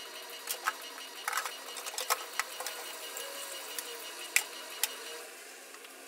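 Washing up at a kitchen sink: tap water running, with scattered sharp clacks and knocks as plastic containers are handled and scrubbed. The water noise drops away about five seconds in, as the tap is turned off.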